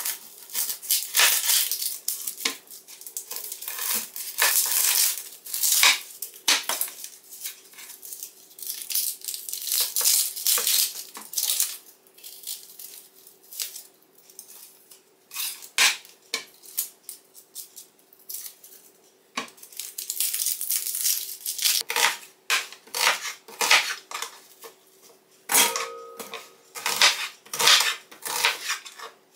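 Kitchen knife cutting onions on a wooden cutting board: irregular knocks of the blade hitting the board, with a quieter stretch of peeling and handling in the middle.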